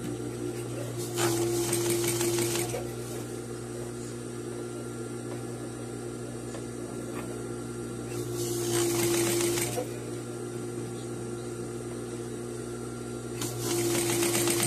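Sewing machine stitching fabric in three short runs of a second and a half to two seconds each, with a steady low hum in between.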